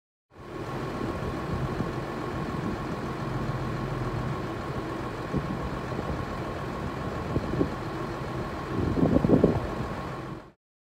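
Tractor diesel engines idling steadily, with a louder, uneven patch about nine seconds in.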